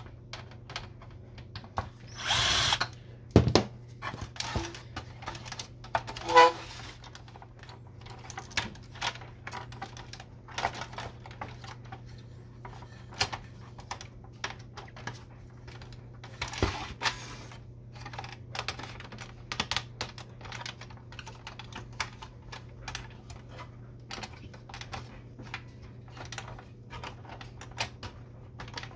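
Cordless drill-driver running in short bursts, driving out screws from the printer's frame: a couple in the first several seconds and another about midway. Between them come frequent small clicks and rattles of plastic printer parts being handled, over a steady low hum.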